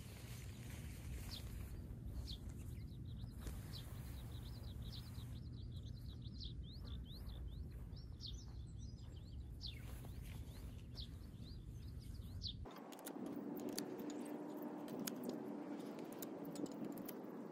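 Small birds chirping again and again over a low steady rumble on an open field. About two-thirds in, the background changes abruptly and rustling with many sharp clicks follows as tent poles are handled and assembled.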